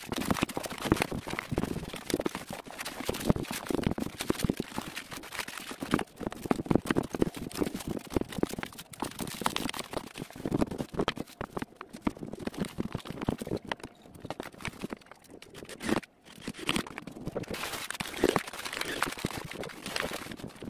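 Plastic stretch-wrap film being pulled off its roll and wound around a machine, with irregular crinkling and crackling; near the end, crumpled paper rustling as it is stuffed into a wooden crate as packing.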